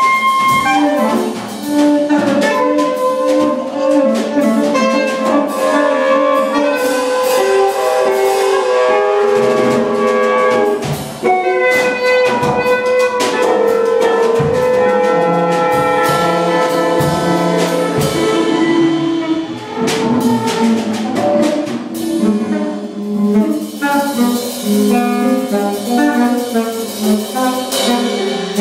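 Live improvised music on soprano saxophone and drum kit: the saxophone plays held and shifting notes while the drums and cymbals strike busily and irregularly underneath.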